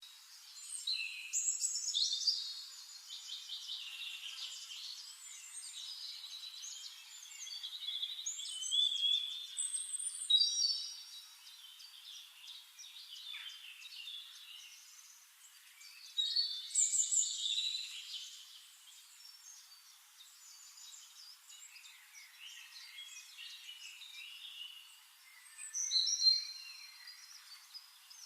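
Songbirds singing in bursts of quick, high warbling phrases, with softer chirping in between.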